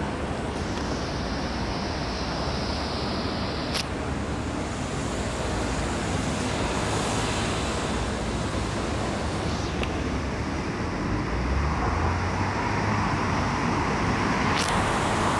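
Steady city traffic noise, growing slightly louder near the end, with three faint clicks along the way.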